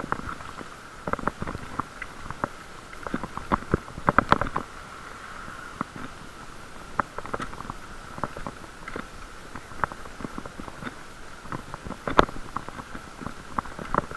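Bicycle ride picked up by a camera in a waterproof case: irregular sharp clicks and knocks, loudest about four seconds in and near the end, over a steady faint whine.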